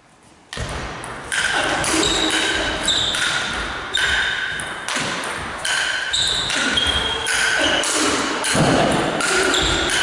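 Table tennis ball struck back and forth in a long rally, starting about half a second in: sharp pings of bat hits and table bounces, about two or three a second, ringing in a large hall.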